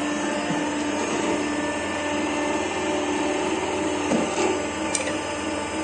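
Cylinder-head surfacing mill running, a steady motor whir with a constant low hum, while the cutter head is brought down toward the head without yet cutting.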